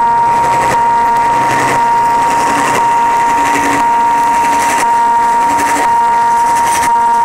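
Level crossing warning alarm sounding one continuous high tone while a freight train passes behind the lowered barrier. Under it runs the train's noise, with regular knocks about once a second and a lower hum from about two and a half to six seconds in.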